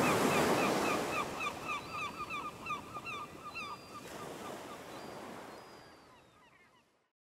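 Beach ambience: a wash of surf with a flock of birds calling rapidly over it, fading out to silence near the end.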